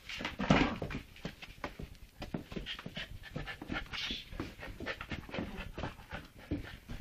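Dogs panting in quick, uneven strokes as a Leonberger puppy and Chihuahuas play, with a louder burst about half a second in.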